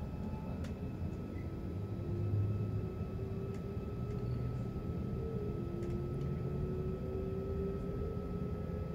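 A moving passenger train heard from inside the carriage: a steady low rumble of wheels on track, with faint whines that slowly rise in pitch as it picks up speed.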